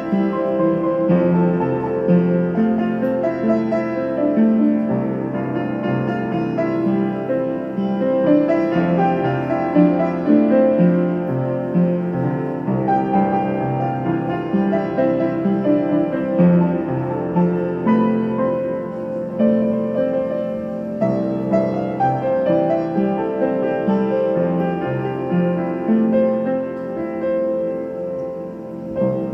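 Piano music, with notes and chords changing about once a second at an even loudness.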